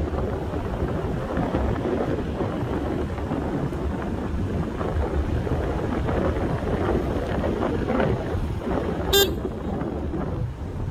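Wind and road rush on the microphone from riding a Dualtron Mini electric scooter at speed, steady throughout. About nine seconds in, a single short, high-pitched horn beep sounds.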